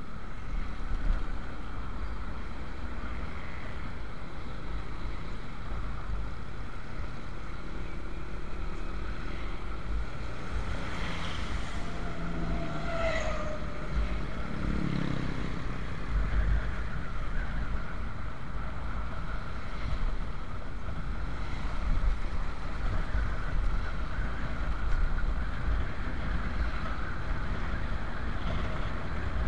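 Motorcycle riding on a busy road: steady wind rush on the microphone over the engine and road rumble. About halfway through, a passing vehicle adds a brief falling tone.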